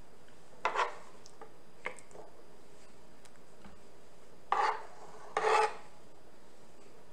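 Metal spoon scraping cookware while scooping cream sauce: three short rasping scrapes, one about a second in and two close together near the end.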